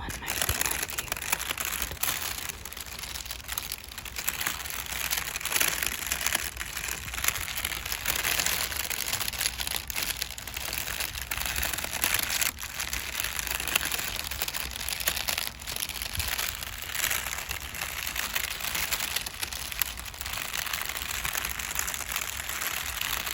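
Makeup brush bristles sweeping over crinkle paper: a continuous crinkling rustle dotted with many small sharp ticks.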